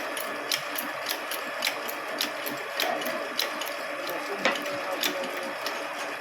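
Sharp mechanical clicks repeating evenly, about twice a second, over a steady background noise.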